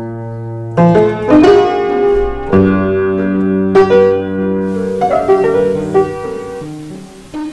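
Slow background piano music: struck notes and chords ringing on, a new one about every second.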